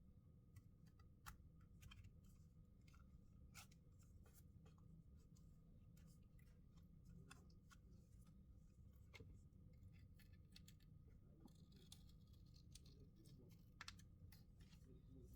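Faint, scattered small clicks and scrapes of plastic and small tools being handled on a smartphone during disassembly, over a low steady hum.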